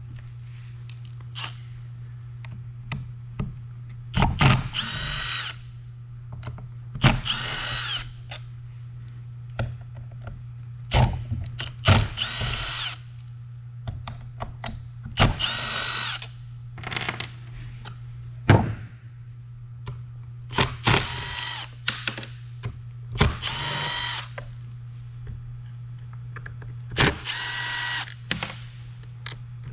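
Cordless drill/driver running in about a dozen short whining bursts, backing screws out of the Onewheel's parts, with clicks and knocks of handling between them. A steady low hum runs underneath.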